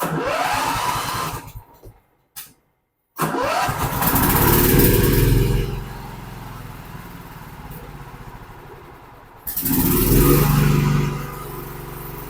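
Zero-turn mower's engine being started by its electric starter: a first crank whirs up and stops after about a second and a half, then a second crank about three seconds in catches and the engine runs. It runs loud, settles lower, and is throttled up again near the end. The starting circuit works again now that a corroded key switch and a burnt-out starter relay have been replaced.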